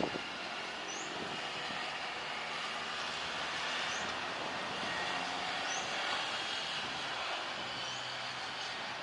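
Jet airliner engine noise, a steady rushing sound, with a short high chirp repeating about every two seconds.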